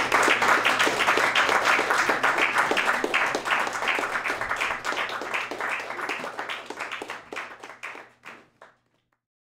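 A small audience applauding, with individual claps audible, thinning out and fading away to silence near the end.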